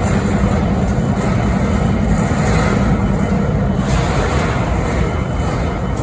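BNSF 5910 diesel locomotive idling, a steady low rumble whose lower hum eases off about four seconds in.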